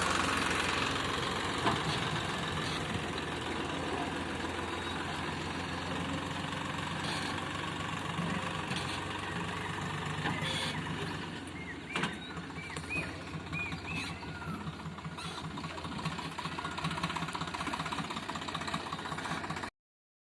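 Swaraj tractor's diesel engine running steadily, with a few short high chirps about two-thirds of the way in. The sound cuts off suddenly just before the end.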